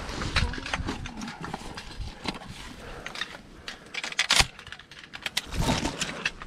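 Shotgun being reloaded: rummaging in a blind bag, shells clinking together and shells clicked into the gun's magazine, with a sharp click about four and a half seconds in.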